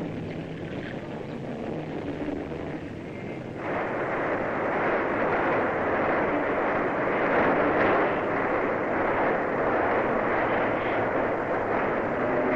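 Third Avenue elevated train running on the steel El structure: a loud, steady train noise that comes in suddenly about four seconds in, after a quieter hiss.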